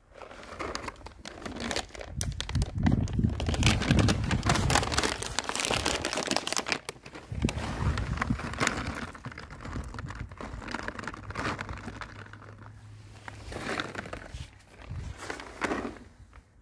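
Loud crinkling and rustling noise close to the microphone, strongest in the first six seconds with a low rumble under it, then quieter with a few short bursts near the end.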